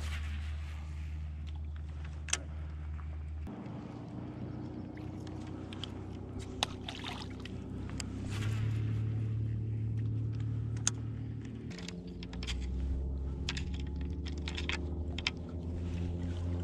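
Background music: sustained low chords that change every few seconds, with a sharp hit about every four seconds.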